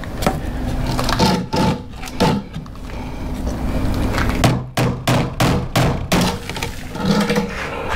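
Boards of a wooden shipping crate being knocked and pried loose: scattered wooden knocks and thunks, with a quick run of about six sharp knocks a little past the middle.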